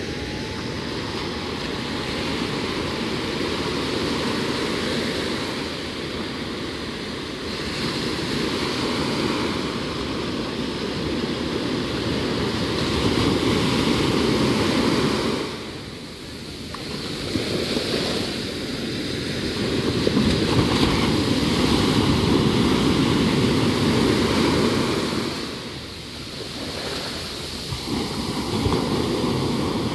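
Sea surf breaking and washing up a sandy shore: a continuous rush of water that swells and eases with each wave, falling away briefly about halfway through and again near the end.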